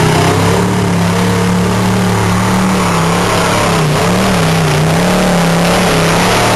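Engine of a 4x4 truck running loud and steady, its pitch wavering slightly up and down with small changes in throttle.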